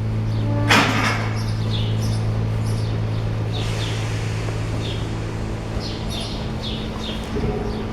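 Small birds chirping in short high calls, repeating about twice a second, over a steady low electrical hum. A brief loud hiss comes about a second in.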